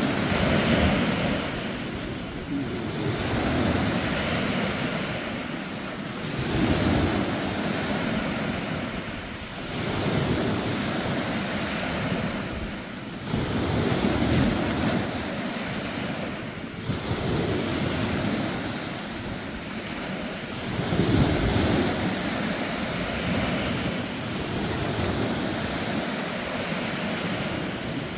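Small waves breaking and washing onto a sandy shore, a gentle surf that swells every three to four seconds.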